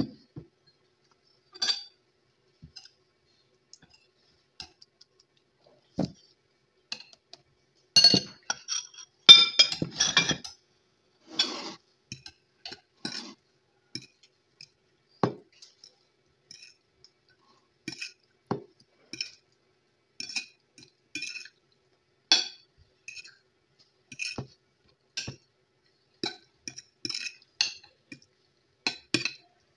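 Metal fork clinking and scraping against a ceramic plate as spaghetti is mixed and twirled: scattered clinks, busiest about eight to ten seconds in.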